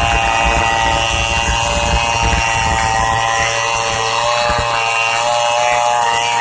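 STIHL 070 two-stroke chainsaw running steadily while ripping pine timber lengthwise, its pitch wavering slightly near the end.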